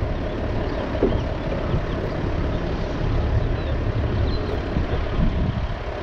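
Flatbed rollback truck's engine idling as a low, steady rumble, with a few faint bird chirps.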